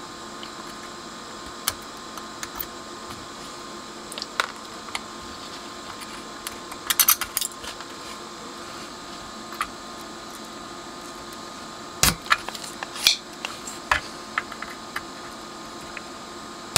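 Small metallic clicks and clinks of a soldering iron and hand tool working on a circuit board while shorted capacitors are desoldered, over a steady background hum. The clicks come scattered, with a small cluster about halfway through and the sharpest knock about three quarters of the way in.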